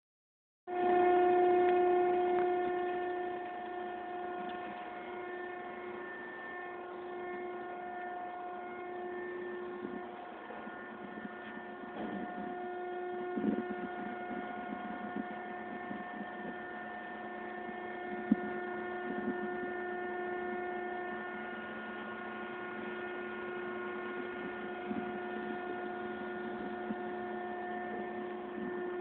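Strong wind making a steady pitched howl with a stack of overtones, over a rushing noise. A few brief knocks partway through.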